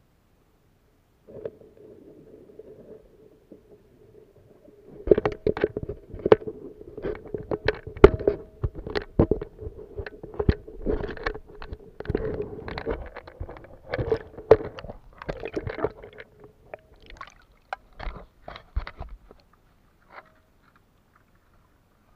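Sound picked up underwater by a submerged camera. A steady hum starts about a second in. From about five seconds a dense run of irregular clicks and knocks follows for some fifteen seconds, thinning out near the end.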